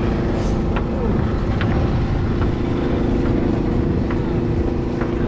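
A small engine running steadily at an even speed, with a few faint clicks or knocks over it.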